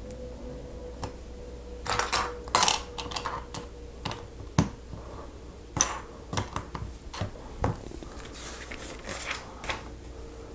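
Plastic Lego bricks clicking and clattering as they are handled and pressed together: a burst of rattling about two seconds in, then scattered single clicks and a softer clatter near the end.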